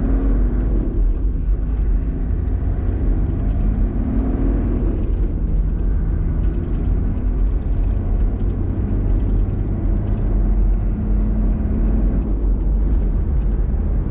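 A vehicle driving at a steady speed on an open road, heard from inside the cabin: a steady low engine and road rumble.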